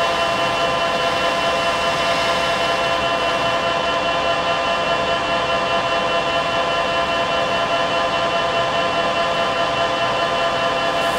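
Lathe running and taking a facing cut across a spinning poly pump diffuser: a steady whine made of several held tones, with no change in pitch or level.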